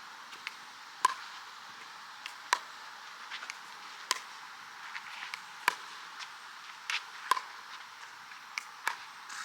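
Pickleball rally: paddles striking the plastic ball with a sharp pock about every second and a half, with fainter clicks of the ball bouncing in between.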